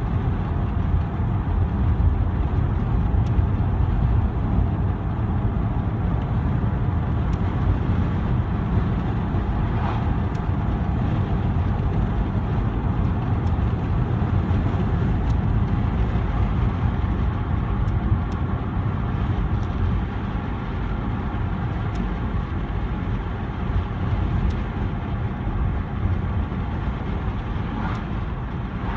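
Interior of a moving car with a window open: steady low road and engine rumble with wind rushing through the open window.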